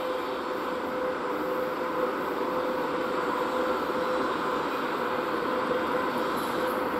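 VL80K twin-section AC electric locomotive hauling a freight train as it approaches, a steady running noise with a steady tone through it, growing slowly louder.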